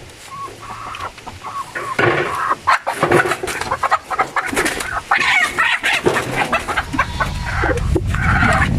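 Native chickens clucking, several at once, starting about two seconds in, with a low rumble joining near the end.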